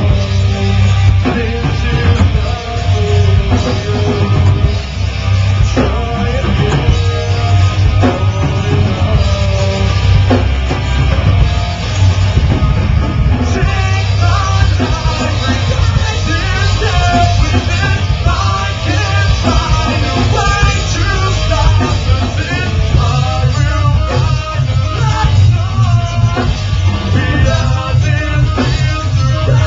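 Rock band playing live: a singer over electric guitar, bass guitar and drum kit.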